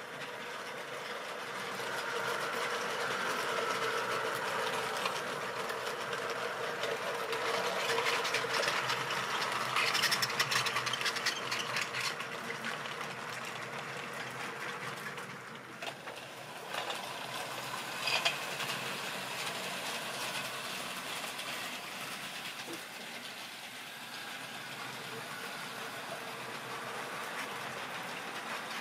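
Model railway train running on the layout's track: a small electric motor whirring and the wheels rattling and clicking over the rail joints. It grows louder as the train passes close by in the middle, then settles back to a steadier running sound.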